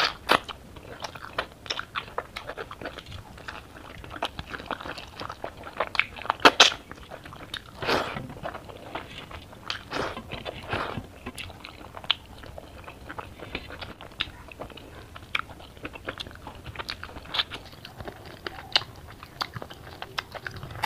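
Close-miked eating sounds: chewing and biting mouthfuls of rice and curry eaten by hand, a dense, irregular run of wet clicks and crunches, with a few louder bites between about six and eleven seconds in.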